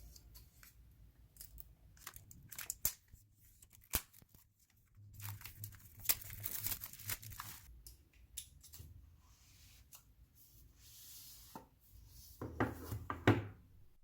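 Product packaging being torn open and handled: short rips, crinkles and small clicks, busiest about halfway through and again near the end.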